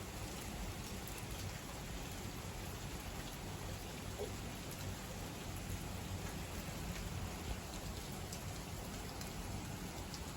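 Rain falling steadily, with scattered sharp ticks of drops hitting nearby surfaces.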